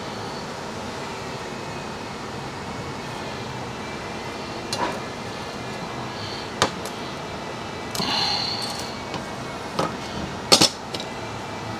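Steady workshop background noise with a handful of sharp metal knocks and clinks from tools and metal being handled, the loudest a quick double knock near the end.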